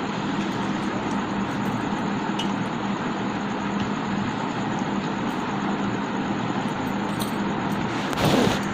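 Steady background hum and hiss, like a running fan or motor, with a few faint clicks and a brief louder swish near the end.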